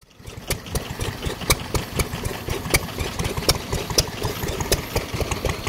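Vintage stationary engine running slowly, fading in at the start, with a low rumble and sharp, uneven firing beats several times a second.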